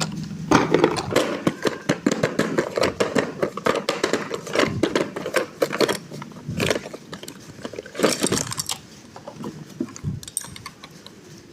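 Plastic toys and packaging being handled: a dense run of clicks, rattles and crackles that thins out about nine seconds in.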